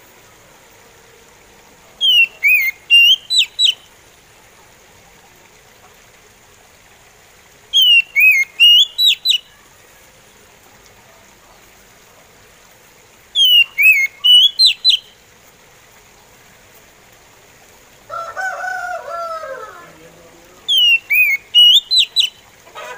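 Oriental magpie robin singing a slow song: the same short phrase four times, several seconds apart, each a falling whistle followed by a few quick sharp notes. About eighteen seconds in there is a lower, drawn-out sound that slides down in pitch.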